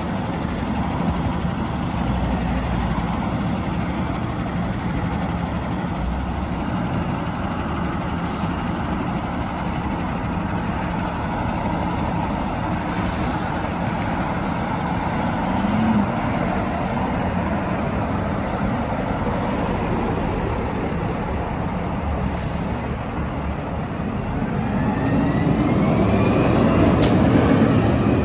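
Diesel engine of a front-loading garbage truck running as it pulls out slowly; near the end the engine note rises and grows louder as it accelerates away.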